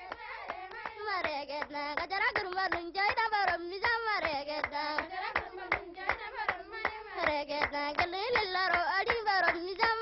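Singing with rhythmic hand clapping: a melodic vocal line over a steady beat of claps.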